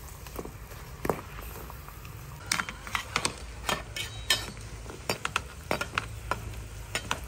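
A metal slotted skimmer clinking and knocking against an aluminium pot and the duck eggs in it as they are moved about in boiling water, in a quick irregular run of sharp clicks from about a third of the way in. Underneath, a steady low bubbling of the boiling water.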